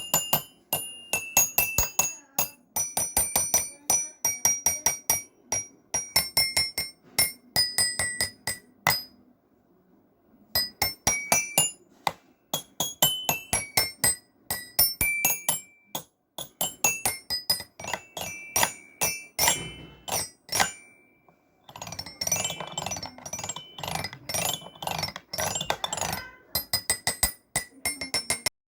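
Music: a quick tune of bright, bell-like struck notes on a mallet instrument, in short phrases with brief pauses, cutting off abruptly near the end.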